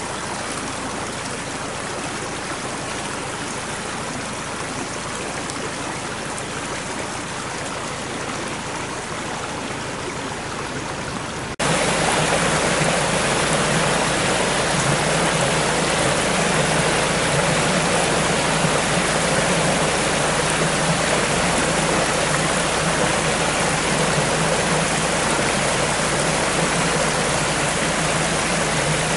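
Rain-swollen woodland stream rushing over rocks and small cascades: a steady rush of water. About a third of the way through it cuts suddenly to a louder, fuller rush.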